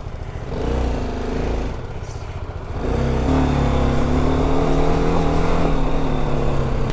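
BMW G310 GS single-cylinder motorcycle engine pulling away at low speed: it rises in pitch, eases off, then about three seconds in picks up and holds a steady, louder drone.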